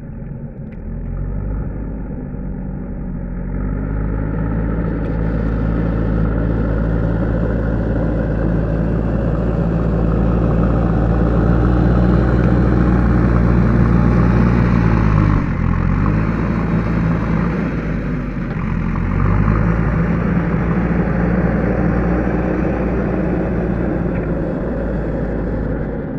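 JCB 3DX backhoe loader's diesel engine running at working revs. Its pitch climbs over the first few seconds, then holds steady, and dips sharply twice past the middle before picking back up.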